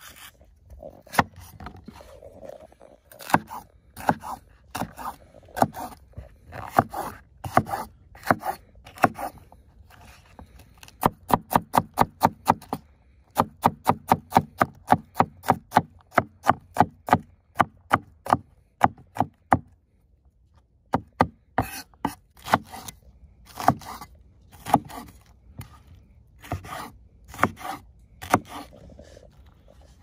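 Kitchen knife chopping green peppers on a wooden cutting board: sharp taps of the blade on the board, irregular at first, then a fast, even run of about four strikes a second in the middle, then slower and uneven again.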